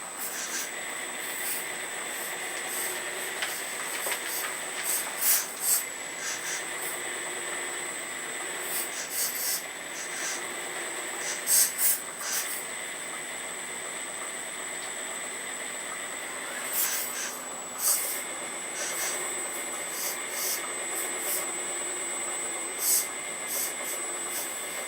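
Radio-controlled Earth Digger 4200XL hydraulic excavator with its pump running, a steady whine with a constant high tone. Many short hissing bursts, some in quick clusters, come as the hydraulics work the arm and bucket.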